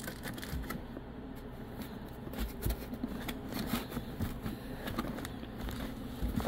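Cardboard box and packaging rustling and scraping by hand, with scattered light clicks and knocks, as a boxed battery charger is unpacked.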